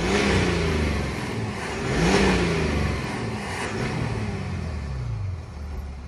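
Mercedes-Benz GLS 350d's 2.9-litre six-cylinder diesel, in Comfort mode, revved from idle in several short blips that each rise and fall back. The loudest rev comes about two seconds in.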